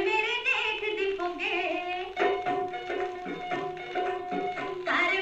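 Punjabi folk song playing from a vinyl record on a turntable: tabla strokes under a steady drone, with a high, wavering sung melody coming in at about the start and again near the middle and the end.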